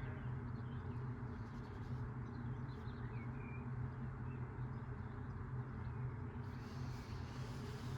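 Front-loading washing machine running with a steady low hum, with faint bird chirps over it.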